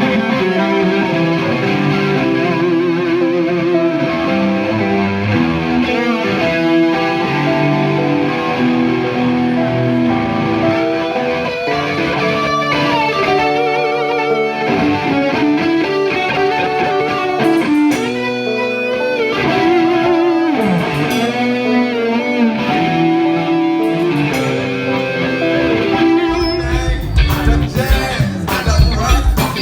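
Live electric guitar solo through distortion and effects, long sustained notes with wide vibrato and bends over a band backing. Near the end, drums and bass come in hard.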